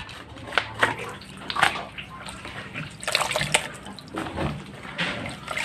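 Water splashing and sloshing as hands rinse wild mushrooms in a plastic colander dipped in a basin of water: a few sharp splashes first, then steadier sloshing from about halfway through.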